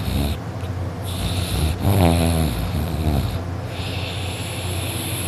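A sleeping young man snoring loudly in repeated cycles. There is a deep pitched snore with a wavering tone about two seconds in, and breathy rushes of air between the snores.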